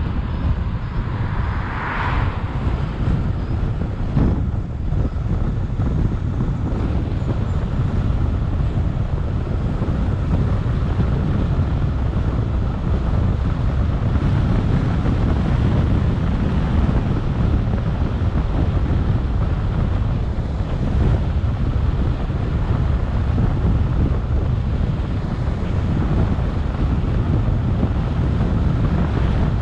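Wind rumbling over the microphone of a camera on a moving car, with steady road noise from the drive. A brief hiss about two seconds in and a short knock a couple of seconds later.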